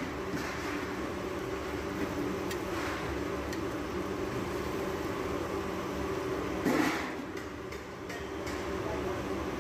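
Mutton pieces sizzling in hot fat in a large pot, over a steady low rumbling hum. About seven seconds in, a louder burst of sizzle rises and fades.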